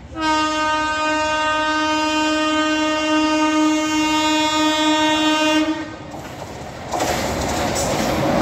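Electric locomotive horn sounding one long, steady single-note blast for about six seconds as an express approaches the station. About a second and a half after it stops, the rushing noise of the train arriving at speed sets in.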